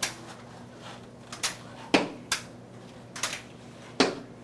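Metal underarm crutches and shoes tapping on a hard, polished corridor floor as a child walks on the crutches, about eight sharp, irregular clacks, some in quick pairs.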